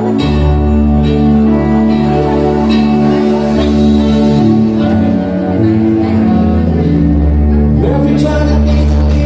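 Live band playing a song with a steady bass line and singing.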